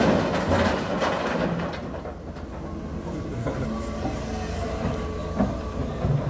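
John Deere 350G crawler excavator's diesel engine running under load, with clanking as it swings back and works its bucket into a pile of rocks. It opens with the tail of a load of rocks rattling into a steel dump-truck bed, and there are a few knocks near the end as the bucket bites into the rock.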